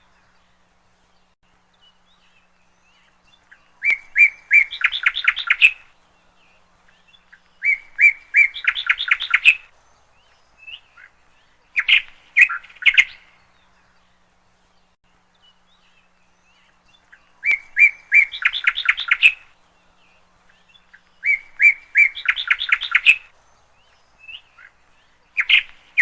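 A bird calling over and over. Each phrase is a few sharp notes that run into a quick chattering series, and the phrases come about every four seconds.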